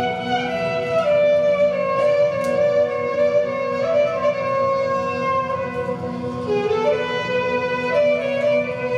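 Live instrumental music: a violin plays a slow melody over plucked-string accompaniment and a steady low sustained note.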